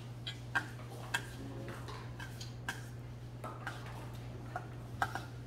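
Metal chopsticks clicking and scraping against a stainless steel bowl while mulhoe is stirred and mixed: irregular light ticks with a few sharper clicks, over a steady low hum.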